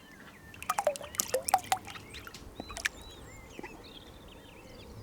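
Ducklings peeping, thin high arching peeps repeated here and there. About a second in comes a quick run of sharp clicks, the loudest sound.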